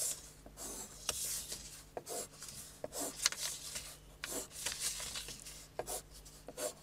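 Pencil scratching on paper in short, irregular strokes, about two a second, as lines of a sketch are gone over to darken them.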